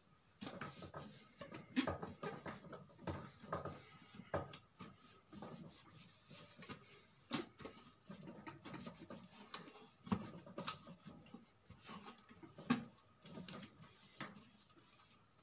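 A cloth rubbing and wiping the plastic housing of a blender motor base, with irregular light knocks and clicks as the appliance is handled.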